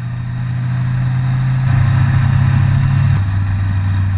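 Motorcycle engine running under way, getting louder after the first second, with its note dropping to a lower pitch partway through, over wind and road noise.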